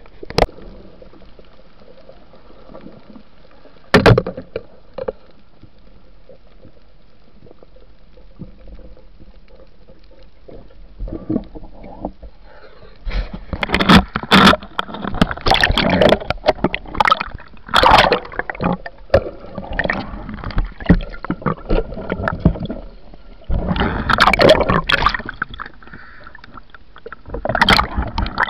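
Water splashing and gurgling around a camera in the sea, in dense, irregular loud bursts through the second half, after a quiet stretch of steady hiss broken by a single knock about four seconds in.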